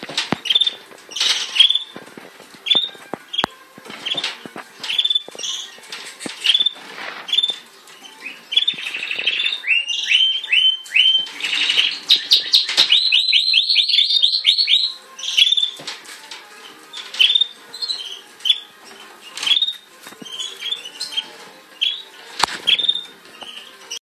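Fife canary chirping again and again, with a fast trill of song from about twelve to fifteen seconds in. A few sharp clicks sound among the calls.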